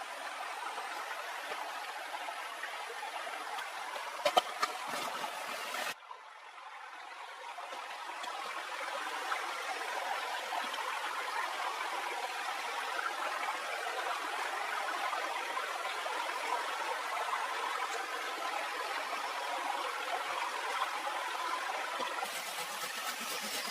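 Steady rushing of running water, like a stream. The sound cuts off abruptly about six seconds in and comes back a little quieter. A few sharp knocks come shortly before the cut.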